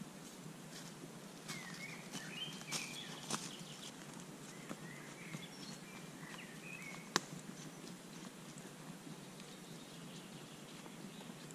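Quiet woodland with small birds chirping in short calls, mostly in the first half, and faint crunching footsteps in dry fallen leaves. One sharp click about seven seconds in.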